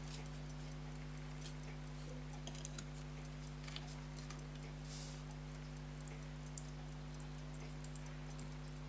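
A few faint, irregular small clicks of fine tools handling pocket-watch parts, over a steady low electrical hum.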